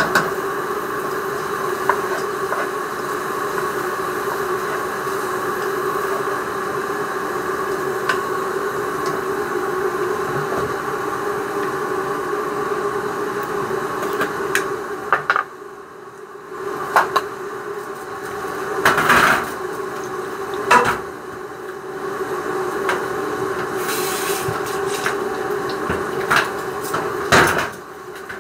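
Steady kitchen hum with occasional knocks and clinks of pots and utensils, as rice is put on to cook in a pot.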